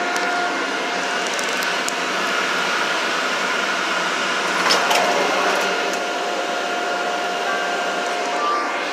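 Steady running noise inside a CTA Brown Line rapid-transit car, heard from the passenger cabin, with faint steady whine tones over the wheel and motor rumble as the train comes into a station. A brief louder rattle comes a little under halfway through.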